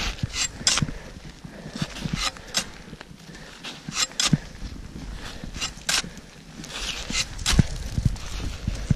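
Crampon-shod mountaineering boots kicking steps into hard snow and ice on a steep downclimb: an irregular run of sharp crunches, roughly one every half second to a second.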